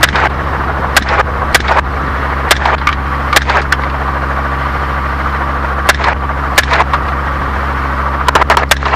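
Robinson R44 helicopter's engine and rotor drone, heard in the open-door cabin, with a dozen or so short sharp pops scattered through it, several coming in quick pairs and a quick run of them near the end.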